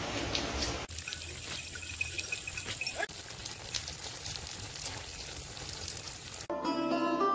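Steady rain hiss, which breaks off about a second in. Fainter water trickling and dripping follows. Plucked-string music comes in near the end.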